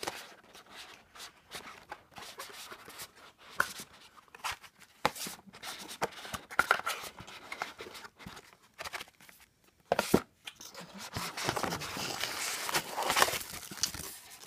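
Small cardboard gift box being handled and opened: scattered clicks, taps and scrapes of card, then denser rustling of paper wrapping for the last few seconds.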